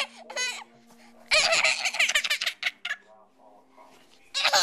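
A toddler laughing in high-pitched giggling bursts. One loud burst comes about a second in, and another rapid run of giggles starts near the end.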